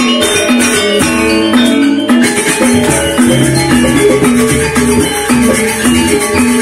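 Lombok saron ensemble playing: bronze metallophones strike a fast, repeating melody over a hand-played barrel drum, with a rapid metallic rattle on top.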